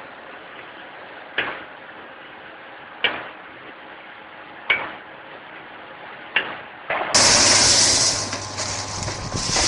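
Vertical form-fill-seal snack packaging machine working, a sharp clack about every second and a half as its jaws seal and cut each pouch. About seven seconds in, a louder steady machine rush with a low hum from another packing machine takes over.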